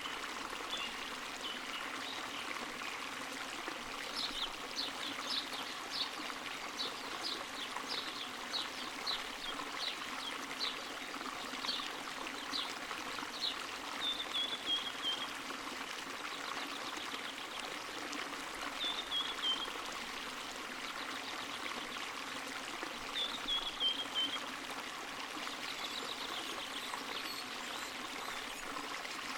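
Spring water running and trickling steadily. Over it come a series of short high chirps, about two a second, starting a few seconds in, and later a few brief falling trills.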